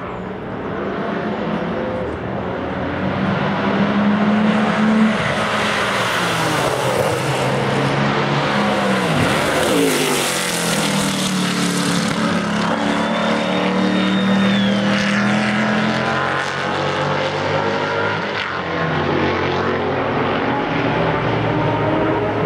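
Several sports racing cars passing at speed, their engine notes overlapping and rising and falling as they go by, with one sharp drop in pitch about nine seconds in as a car passes close.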